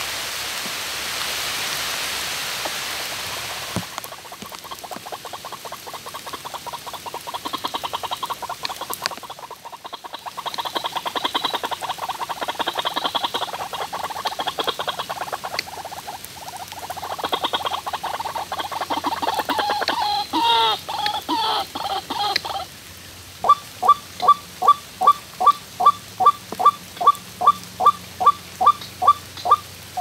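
White-breasted waterhen calls: after a few seconds of even hiss, a long run of rapid, frog-like croaking and chattering, which about three-quarters of the way through gives way to a steady series of short, loud, falling 'kwak' notes, about two and a half a second.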